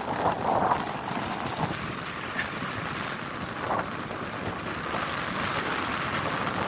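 Steady rush of surf breaking on the beach, with wind on the microphone and a couple of brief louder swells.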